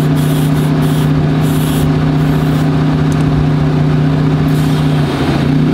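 Up Down Air EGOI dual-motor onboard air compressor running with a steady, loud hum while inflating a tire through an air hose and chuck. The hum wavers briefly near the end.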